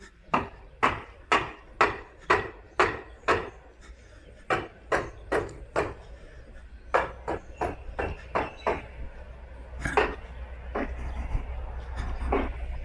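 Sharp, loud knocks on a hard surface, about two a second in runs of four to seven with short pauses between, fewer and more spaced near the end.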